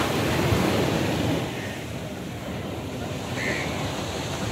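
Sea surf washing on the beach, with wind buffeting the microphone; the rush is louder for the first second or so, then eases.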